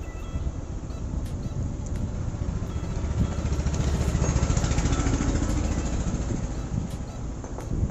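A motorcycle engine running, its low rumble growing louder through the middle and easing off again.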